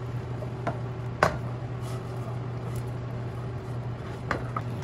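A utensil knocking and scraping against a nonstick frying pan as diced fried potatoes are scooped out, a few sharp clicks, the loudest about a second in and two more near the end, over a steady low hum.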